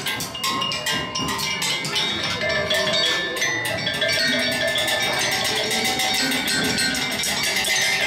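Group improvising on homemade metal percussion: sticks striking a metal cylinder and a frame of upright metal rods in a dense, fast clatter, with ringing metallic tones held over the strikes.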